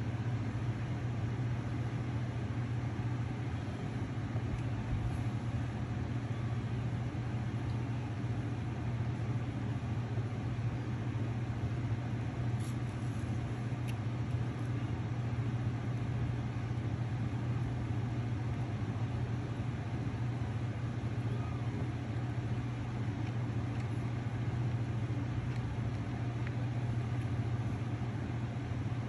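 Steady low machine hum that holds unchanged throughout.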